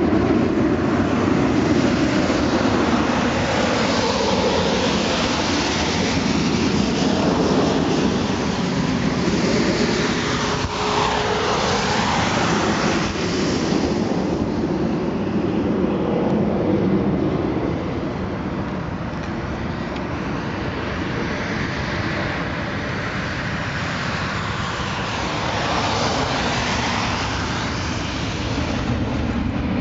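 Boeing 747-400 four-engine jet noise: a loud rumble and roar as the airliner comes in on final approach, its engine whine sweeping in pitch as it passes. The noise drops off about halfway through, then swells again near the end as the jet's engines power up on the runway for takeoff.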